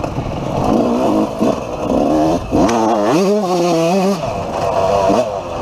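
Dirt bike engine of the 250 class revving hard under throttle, its pitch climbing about halfway through, holding for about a second, then dropping off and climbing again near the end, with a low rumble of wind and ground noise.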